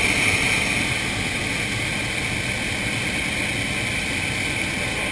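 Hot-air balloon's propane burner firing in one steady, loud blast of about five seconds, a rushing hiss that starts and cuts off suddenly.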